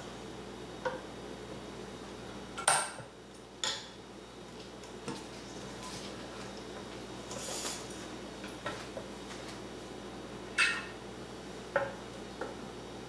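Scattered clicks, clinks and knocks of a badminton racket and its string clamps being handled on a Klippermate M140 stringing machine as the racket is turned around, about nine in all, the loudest a little under three seconds in. A brief hiss comes near the middle.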